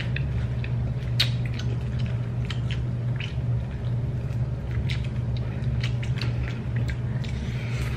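Close-miked chewing and lip smacking of people eating fried food, with scattered short wet clicks, over a steady low hum.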